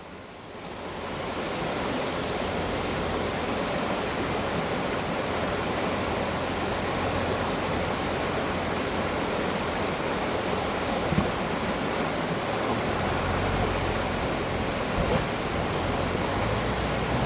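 Steady rushing of river water, building over the first two seconds and then holding even, with a faint low engine hum beneath it.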